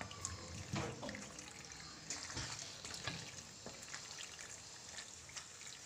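Wooden spatula stirring elbow macaroni through thick tomato and cheese sauce in a stainless steel pan: wet squelching, with irregular scrapes and knocks of the spatula against the pan.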